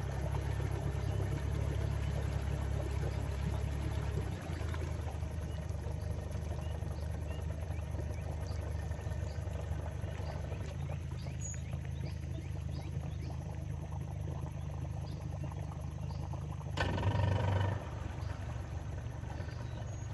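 Mercury outboard motor running steadily at a slow cruise, a low even hum. About seventeen seconds in, a louder noise lasts about a second.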